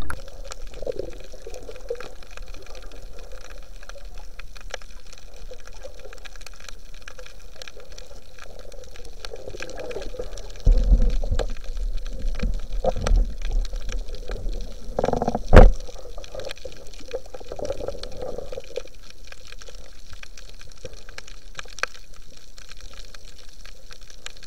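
Muffled underwater water noise picked up by a camera in its housing, with a few dull low knocks and thumps partway through, the loudest about fifteen seconds in.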